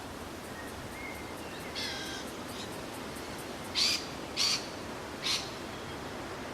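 A bird calling outdoors: a short call about two seconds in, then three loud, harsh calls in quick succession about four to five seconds in.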